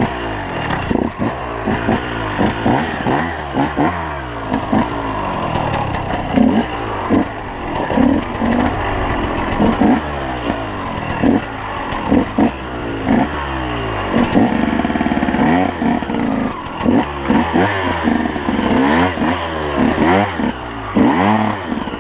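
KTM 125 EXC two-stroke enduro bike engine revved in quick repeated bursts, its pitch rising and falling again and again as the bike picks its way over rough woodland ground.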